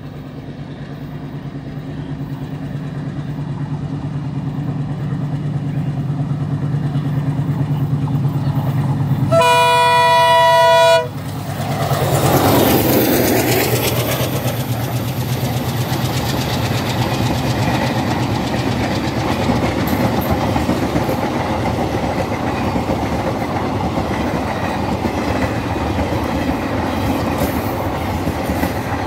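ALCo WDM-3A diesel locomotive (a rebuilt WDM2) chugging as it approaches, its engine drone growing steadily louder, and giving one long horn blast of about a second and a half around ten seconds in. The locomotive then passes close by, and the coaches run by with a steady clickety-clack of wheels over the rail joints.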